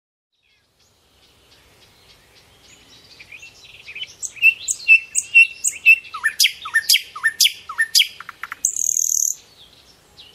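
Songbird singing. Quiet chirps fade in and grow louder into a run of repeated notes, then several sharp whistles sweeping steeply downward, about three a second. The song ends with a short harsh buzz near the end before fading.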